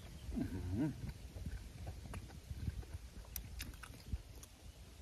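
A person chewing a large mouthful of boiled beef tripe, with wet mouth clicks and soft low thumps throughout. A short hummed "mmm" comes about half a second in.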